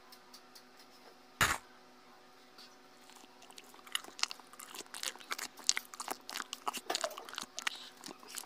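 Close-up biting and chewing of fresh fruit, watermelon among it: many small wet crunches and smacks, thickening from about three and a half seconds in. A single loud thump about a second and a half in.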